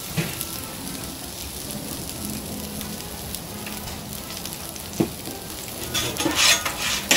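Chicken sausage links frying on a hot steel flat-top griddle, a steady sizzle. About five seconds in there is a single click. From about six seconds the sound grows louder and brighter as a metal spatula scrapes across the griddle, spreading freshly squeezed canola oil that sizzles on the hot steel.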